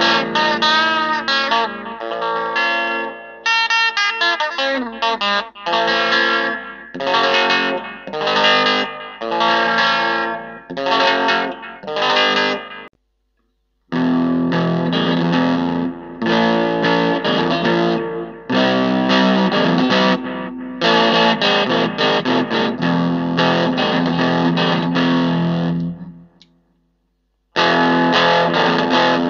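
Electric guitar played through a hand-built Fuzz Face fuzz pedal using Tesla KF508 transistors, giving a distorted, fuzzy tone. It plays riffs and chords in short phrases, breaking off briefly about halfway through and again near the end.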